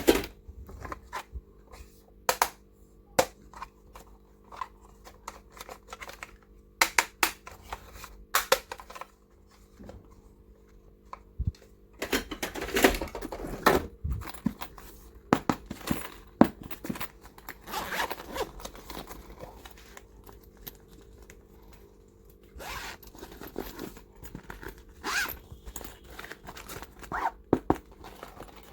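Small plastic stationery and toys being handled: scattered sharp clicks and taps, with a few longer scraping, zipper-like rasps in the middle of the stretch.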